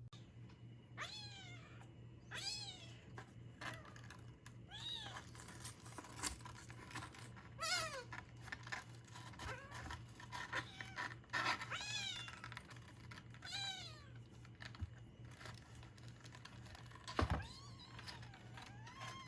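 A newborn kitten mewing over and over, thin high-pitched calls that rise and fall, every second or two. A steady low hum runs underneath, with scattered clicks and a sharp thump about 17 seconds in.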